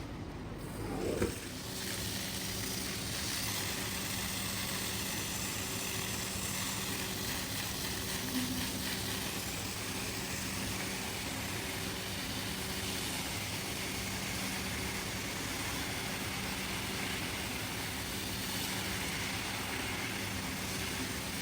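A machine running steadily: a constant hum with an even hiss over it, and a brief louder knock about a second in.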